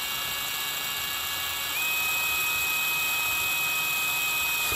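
Cordless drill spinning a twist bit as it bores into the traffic-light housing, with a steady high-pitched whine that steps up in pitch and gets louder about two seconds in.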